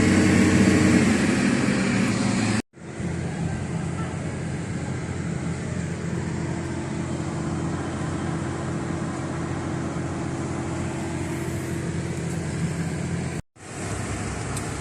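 Steady drone of a running vehicle engine, with a low hum under a wash of noise. It cuts out abruptly for an instant twice, a few seconds in and near the end.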